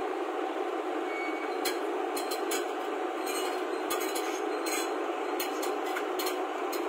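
Heavy diesel engines of a truck and a JCB tracked excavator running steadily. From about one and a half seconds in, a string of irregular sharp clicks and knocks sounds over them.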